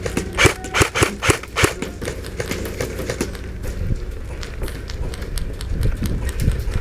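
A run of sharp clicks and taps, about three a second for the first two seconds, then scattered fainter ones, over a steady low rumble.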